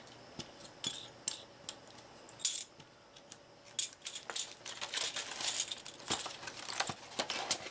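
Small plastic game pieces and packaging being handled and packed into a cardboard box: light, irregular clicks and rattles, busier in the second half.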